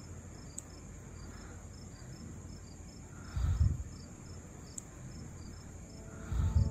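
Crickets chirping, a steady high trill with short chirps about four times a second. Two deep thuds about three seconds apart are the loudest sounds.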